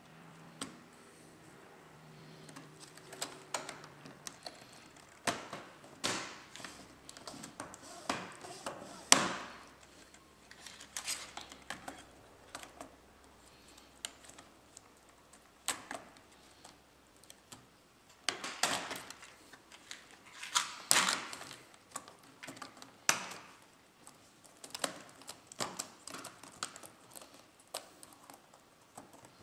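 Plastic clicks, taps and snaps as an HP Pavilion laptop's keyboard and palmrest are pressed back into place, the keys rattling under the fingers. Irregular, with the sharpest snaps about nine and twenty-one seconds in.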